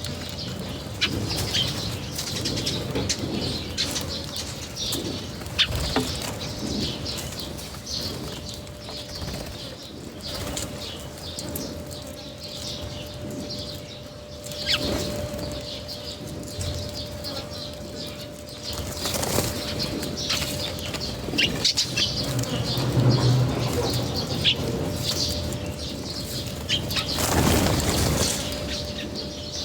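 Birds' wings flapping in several loud flurries as they land and take off at the feed, with chirps and scattered sharp clicks between.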